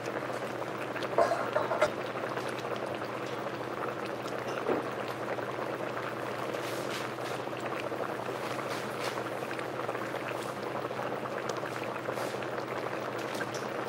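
A pot of squash curry simmering on a cooktop, its thick sauce bubbling and popping steadily as it cooks down to thicken, over a low steady hum. There are a couple of brief louder noises a second or two in.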